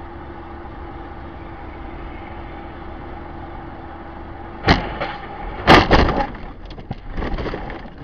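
A car running with a steady hum, then a collision: a sharp bang just past halfway, a louder crunching impact about a second later, and a stretch of clattering and rattling.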